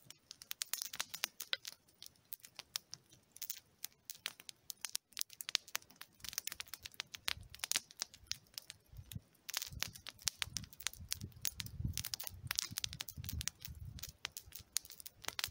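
Small wood campfire crackling, with frequent sharp, irregular pops and snaps. A low rumble joins in about halfway through.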